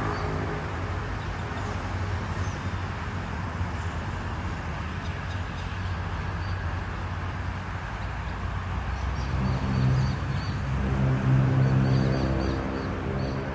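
A motor vehicle's engine running, a low hum that swells loudest about ten seconds in, with faint short bird chirps over it.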